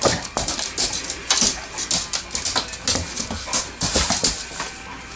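A dog making sounds close by: an irregular run of short noisy bursts, several a second.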